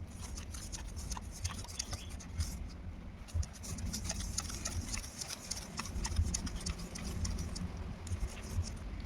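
Hands handling and pressing a PVC saddle fitting onto a plastic pipe: scattered small clicks and scraping rubs over a steady low rumble.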